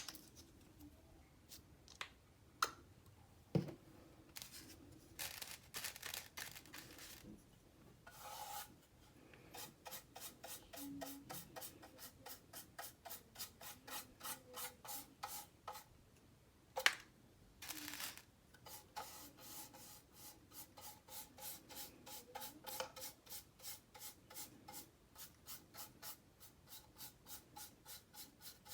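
Rhythmic rubbing strokes on a hard surface, about two to three a second, broken by a few sharp knocks.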